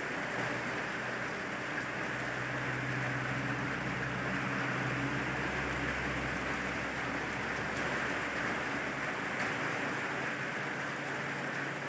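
Steady rain falling, an even hiss throughout. Under it, a low vehicle rumble builds, is loudest about halfway through, and fades out a couple of seconds later.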